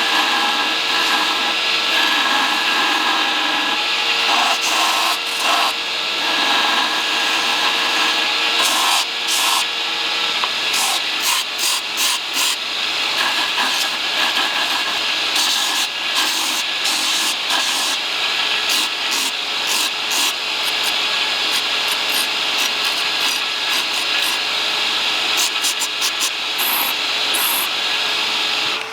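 Electric grinder grinding a steel file, its motor running at a steady pitch under a harsh, crackling grinding noise that varies with the pressure on the metal.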